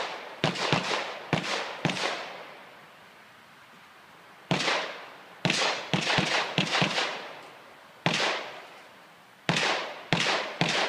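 Pistol shots in a competition stage, fired in fast strings of several shots, each with a short echo, separated by pauses of one to two seconds.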